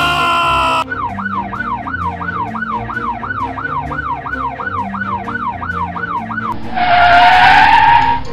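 Cartoon emergency-vehicle siren sound effect, a fast up-and-down wail of about two and a half cycles a second, after a falling tone ends early on. Near the end the siren gives way to a loud tyre-screech skid effect. Soft background music plays underneath.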